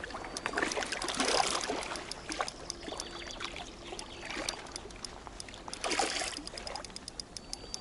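Water splashing and trickling as a hooked asp of about a kilo fights near the surface on light spinning tackle, with surges about a second in and again around six seconds. Short sharp clicks come through it, quickening near the end.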